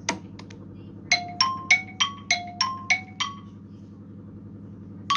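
An iPhone ringtone playing: a quick phrase of about eight short, bell-like chime notes stepping between a few pitches, each fading fast, over a faint steady hum.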